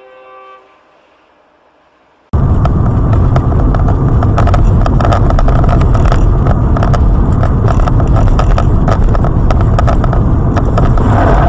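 Car driving on a winter highway, picked up inside the cabin by a dashcam: loud road and engine rumble dense with sharp clicks and rattles, starting abruptly about two seconds in after a quiet moment.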